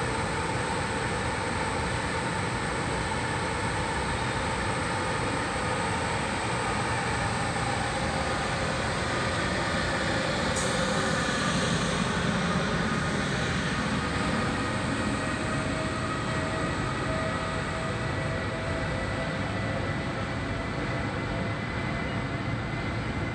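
PKP Intercity EU44 Husarz electric locomotive (Siemens Taurus) pulling a train away from the platform, a steady run of mechanical noise with several held tones. About halfway through one whine starts to climb slowly as the train gathers speed, while the coaches roll past.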